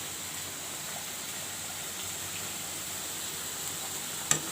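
A pot of vegetables boiling on the stove gives a steady bubbling hiss. A single short knock sounds near the end.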